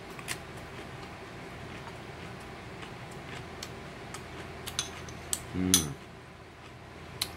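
Eating with a metal spoon from a ceramic rice bowl: scattered light clicks and clinks of spoon on bowl over a steady low background hum, with a brief hum of the eater's voice about five and a half seconds in.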